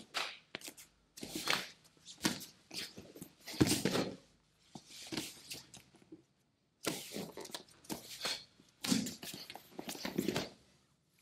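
Thuds, slaps and foot scuffs of two people working through a hand-to-hand martial-arts combination with a takedown. The hits come as two runs, split by a moment of dead silence about six seconds in.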